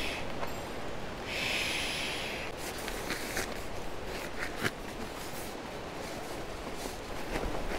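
Breath blown hard into the valve of a Thermarest NeoAir inflatable sleeping pad, one long exhalation about a second and a half in, as the pad is topped up by mouth. Then scattered rustles and clicks as the inflated pad is handled and moved.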